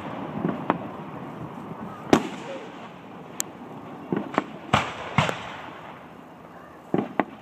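Aerial fireworks shells bursting: about ten sharp bangs at uneven intervals, the loudest about two seconds in, with a cluster a little after four seconds and two more near the end.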